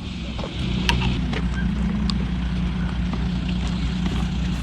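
Steady low, engine-like hum with a few faint clicks.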